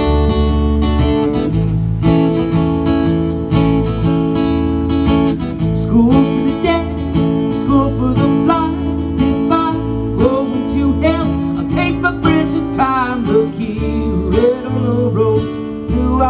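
Acoustic guitar strummed in steady chords, with an electric bass guitar playing a low line underneath that changes note about every second.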